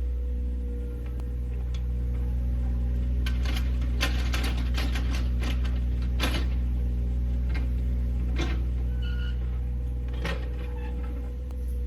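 A heavy-equipment engine running steadily, with scattered scrapes and clicks over it, most of them in the middle.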